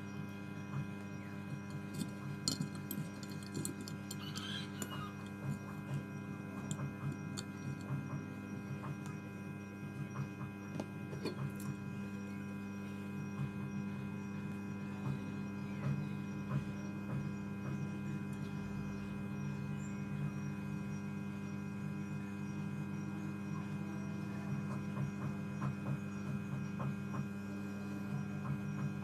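Steady electrical mains hum from the repair bench, a stack of unchanging tones. Scattered small clicks and taps of tools handling the phone board fall mainly in the first dozen seconds.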